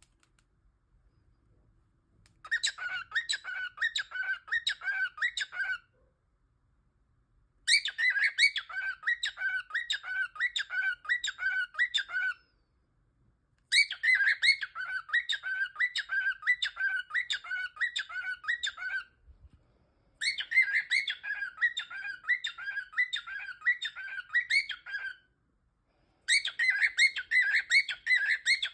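Cockatiel calling in bouts of rapid, repeated call notes, five bursts of several seconds each, with short pauses between them.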